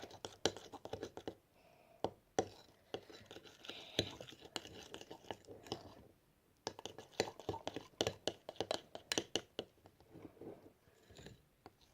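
Spoon stirring and scraping a thick, creamy mix of baby shampoo and powder in a bowl: faint, irregular clicks and scrapes, with a short pause about six seconds in.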